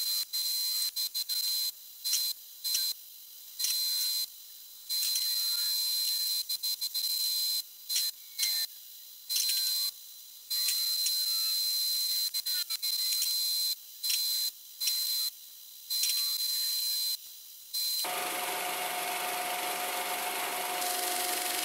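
MIG welder arc on steel, hissing and crackling in a string of short runs broken by brief pauses. About eighteen seconds in it gives way to a power sander grinding the steel.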